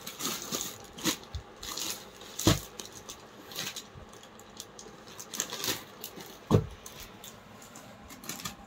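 Clear plastic packaging crinkling and rustling as a packed suit is handled and drawn out of its packet, with two short thumps, about two and a half seconds in and again about six and a half.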